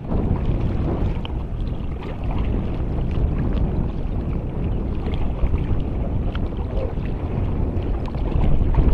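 Kayak being paddled: the paddle dipping and splashing in the water, over a steady low rumble of wind on the camera microphone.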